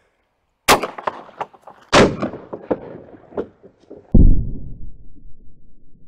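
Benelli M4 shotgun firing 1-ounce slugs: three blasts, about 0.7 s, 2 s and 4 s in, each trailing off into echoes and scattered small knocks. The last blast is the loudest and deepest.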